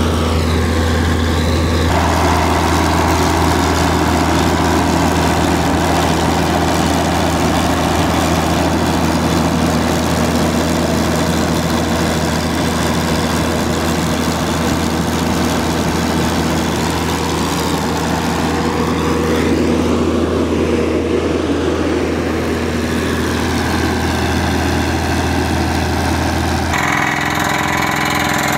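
Engine of the drilling outfit running steadily at a constant speed with a deep hum. The tone changes abruptly about two seconds in and again near the end.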